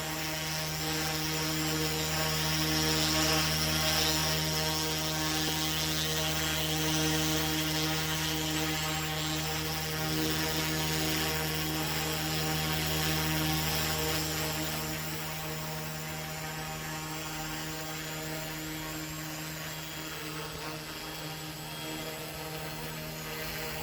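Yuxiang F07 RC helicopter hovering in place: a steady hum and whine from its electric motor and spinning rotors, holding the same pitch, which dips slightly in level about two-thirds of the way through.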